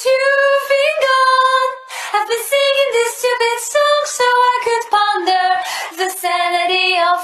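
A woman's voice singing unaccompanied, a slow melody of high held notes that step up and down in pitch.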